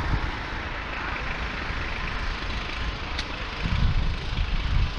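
Wind rushing over a beach, with gusts rumbling on the camera microphone over a steady hiss of wind and surf; the rumble is strongest a little before the end.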